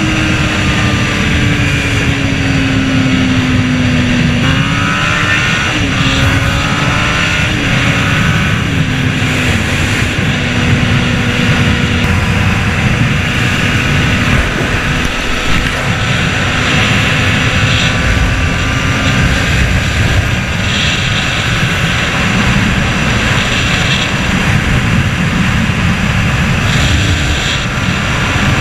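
Honda CBR600RR's inline-four engine running at road speed under heavy wind rush on the microphone. The engine note shifts up and down in pitch a few times, then holds steady.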